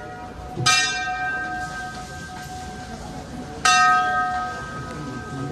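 Large hanging brass temple bell struck twice, about three seconds apart, each sharp clang ringing on in several steady tones that are still sounding at the next strike.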